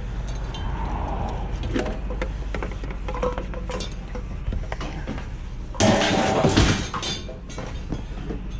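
Scrap metal and junk clinking and clattering as it is handled. About six seconds in there is a loud clatter lasting about a second, as of items being thrown down. A steady low rumble, as of a vehicle idling, runs underneath.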